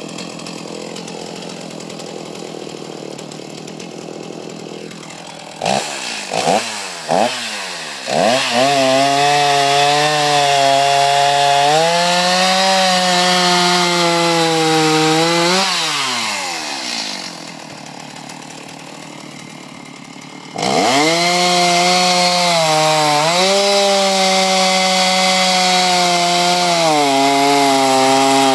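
Chainsaw engine starting with three short sputters, then running at high revs with the pitch stepping up and down. About halfway through the revs fall away and it runs quieter for a few seconds. It then revs up again for a long steady run while the saw cuts down into a log round.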